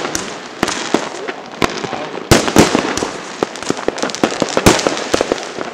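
Fireworks going off: a quick, irregular string of sharp bangs over a continuous crackle, with the loudest reports about two and a half seconds in and again near the end.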